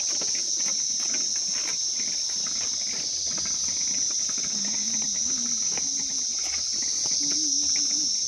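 A chorus of crickets making a steady, high-pitched chirring drone that never breaks.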